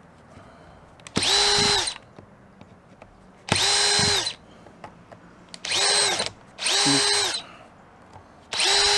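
Cordless drill-driver running in five short bursts, each spinning up to a steady whine and stopping within a second, as it backs the security screws out of a power-tool battery's case.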